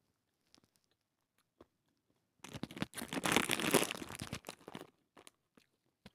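Plastic bag of shelled sunflower seeds crinkling and rustling as a hand reaches in for seeds, a dense crackle for about two seconds starting a little before halfway in.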